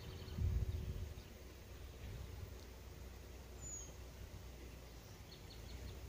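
Wind rumbling on the microphone, with a strong gust about half a second in, and faint short bird chirps over it, including a quick run of four high chirps near the end.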